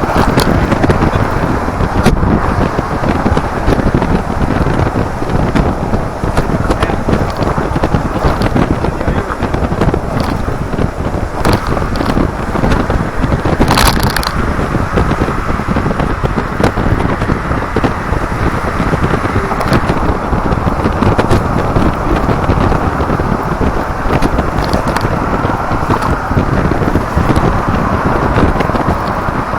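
Wind buffeting the microphone and road noise in an open-top Daihatsu Copen at expressway speed: a steady loud rush with scattered crackles and pops, the loudest about halfway through.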